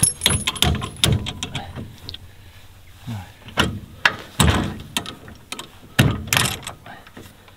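Steel trailer safety chains clinking and rattling as they are handled and shackled onto a 4WD's tow bar, with a few sharper metal clanks about halfway through and near the end.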